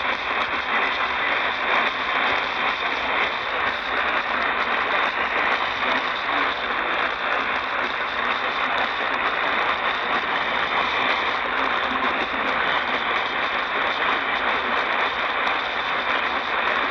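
Steady radio static: an even hiss with a faint crackle, with no speech or tones coming through.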